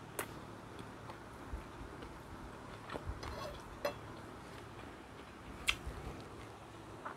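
Close-miked chewing of fried dried fish and rice, with a few sharp crunches spread through it.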